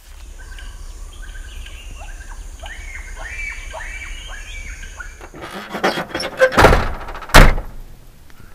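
Forest ambience sound design for a logo intro: a series of repeated chirping calls over a steady high hiss. It is followed by a flurry of clicks and two heavy thuds, about six and a half and seven and a half seconds in, the second the loudest.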